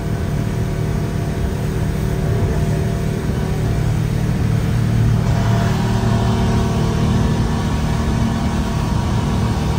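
Motorboat engine running steadily under way, a low hum over the rush of hull and water, with a little more rushing noise from about halfway.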